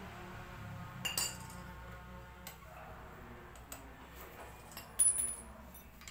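Light metallic clinks of brake parts and tools being handled: one clink about a second in and a louder, ringing clink about five seconds in, with a few faint ticks between.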